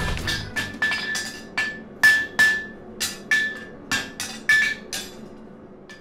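A hammer striking metal about a dozen times in an uneven rhythm, each blow ringing with a clear high tone; the blows stop about five seconds in.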